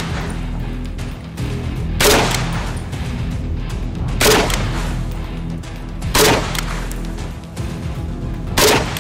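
AK-47 rifle firing four single 7.62x39 mm shots, about two seconds apart, into a bulletproof glass pane. Background music runs underneath.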